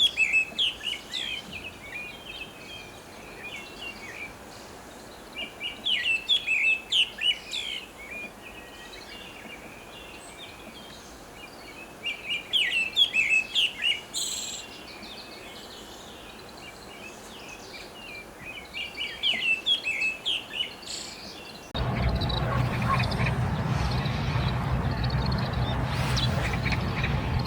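Pale thrush singing: four short phrases of quick chirpy notes, several seconds apart. About three-quarters of the way through, it gives way abruptly to louder steady background noise with a low hum.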